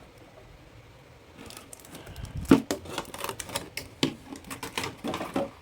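Quick irregular clicks, taps and rustles of a small plastic figure and its packaging being handled, beginning about a second and a half in, with one sharper knock near the middle.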